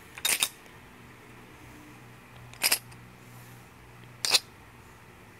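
Silver half dollars clinking against each other and their clear plastic coin tube as the stack is slid out into a hand: a quick few clicks at the start, then two single clinks about a second and a half apart.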